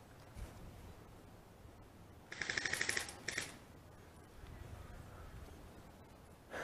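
An airsoft gun firing a short rapid burst of about a dozen shots in under a second, then a couple more shots just after.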